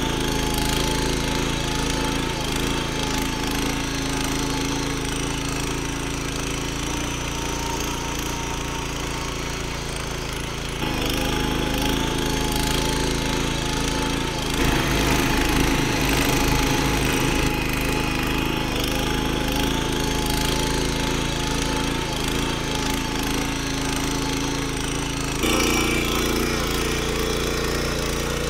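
Small air-cooled petrol engine of a walk-behind power tiller running steadily under load while its rotary tines churn soil. Its note and loudness shift abruptly a few times.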